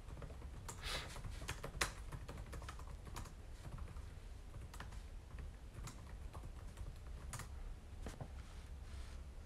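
Faint, irregular typing clicks on a keyboard, with a cluster of quick keystrokes about a second in and sparser ones after, over a low steady hum.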